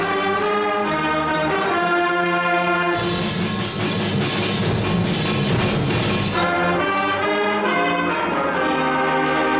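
Middle-school concert band playing the first bars of a piece: brass and woodwinds holding chords over low notes, with percussion crashing in about three seconds in and dropping out again about three seconds later.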